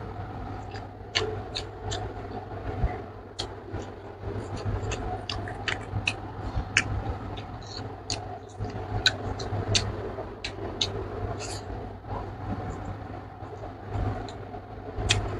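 Close-up chewing and wet lip-smacking of a person eating rice and meat by hand, with many sharp mouth clicks scattered through, over a steady low hum.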